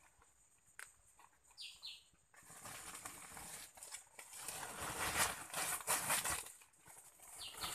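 Dense rustling and crackling of dry leaf litter and brush being trampled and handled, starting suddenly about two seconds in and easing off near the end. A short high chirp sounds before the rustling and another near the end.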